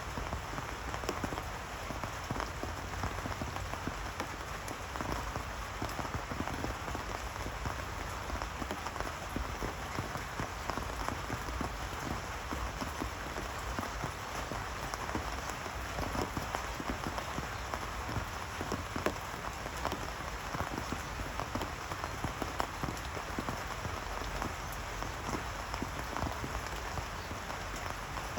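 Rain falling steadily: an even hiss of many fine drop hits.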